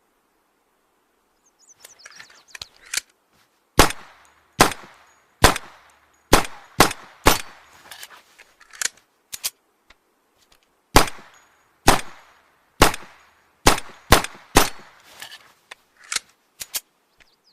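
Makeshift imitation handgun sound effect: a run of about fifteen sharp shot-like cracks, each with a short ringing tail, fired at irregular intervals, starting about two seconds in after a few faint clicks.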